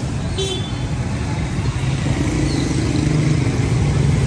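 Street traffic with a motor rickshaw's engine running close by, its drone getting louder over the second half. A short high beep sounds about half a second in.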